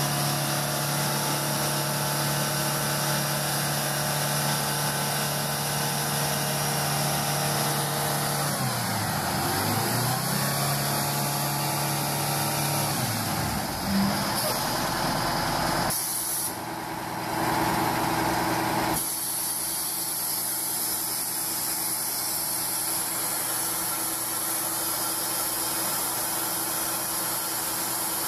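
Diesel engine of a military heavy-haul tractor truck running steadily under load. The engine note drops and climbs back about a third of the way in and drops again near the middle. A loud hiss lasts a few seconds past the middle.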